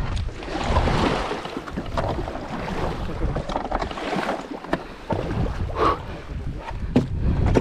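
Sea water splashing and sloshing around a kayak being launched from the shore, with wind buffeting the microphone and a few sharp knocks.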